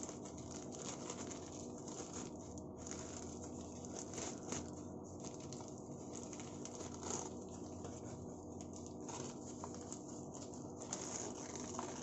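Faint rustling, crinkling and small ticks of plastic and paper packaging being handled and unwrapped from a potted plant, over a steady low hum.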